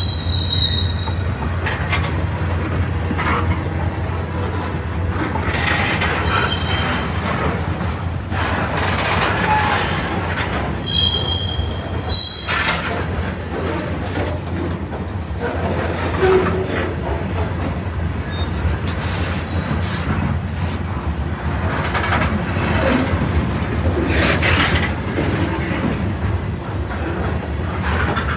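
Freight train of tank cars and boxcars rolling past: a steady low rumble of wheels on rail with scattered clicks and clanks, and short high-pitched wheel squeals near the start and again about eleven seconds in.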